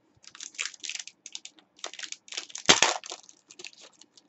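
Foil trading-card pack wrapper crinkling and tearing as it is ripped open by hand: a quick run of rustles and crackles, with one loud sharp tear a little under three seconds in.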